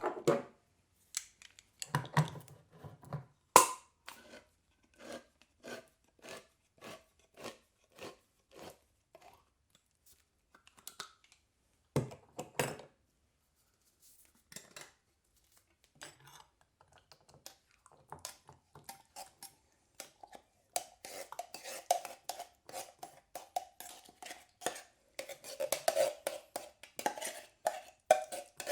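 Can opener working a tin: a few loud clicks and crunches, then even clicks about twice a second as it turns, thinning out, and in the last third faster clicking with a squeaky metallic tone.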